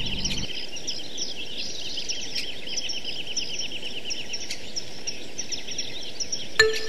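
Forest ambience sound effect: small birds chirping in rapid, repeated trills over a soft hiss. A light plinking music cue starts just before the end.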